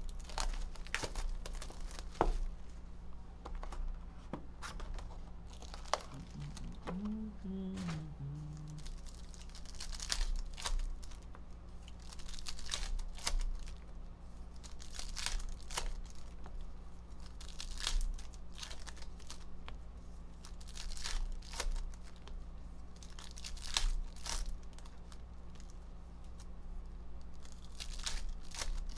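Plastic shrink-wrap and foil trading-card packs being torn open and crinkled by hand, in short, irregular rustles.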